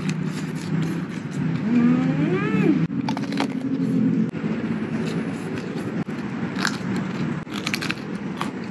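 A person eating raw vegetables: a few short crisp crunches of bites and chewing, with a rising then falling hummed "mmm" of enjoyment about two seconds in. A steady low rumble of road traffic runs underneath.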